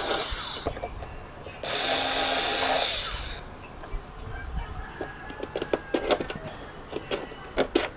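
A small electric power tool's motor whines in a burst that stops under a second in, then runs again for about a second and a half. Scattered sharp clicks and knocks follow near the end.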